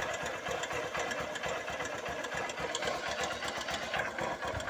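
Honda CG 150 Titan's single-cylinder four-stroke engine running with a fast, even metallic knocking, like iron hitting iron, which the mechanic says can be the cam chain.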